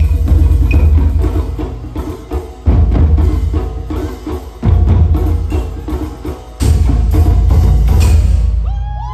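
Live Japanese taiko drumming with shamisen: fast strokes under big booming drum hits about every two seconds. The music dies away near the end.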